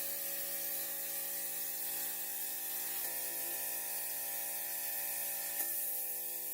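Paint spraying: a steady spray hiss over a constant motor hum.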